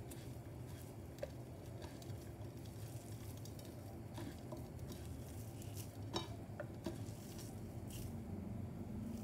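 Bare hands mixing a shredded meat and spice mixture in a plate: faint rustling and squishing, with scattered light clicks where fingers touch the plate, over a low steady hum.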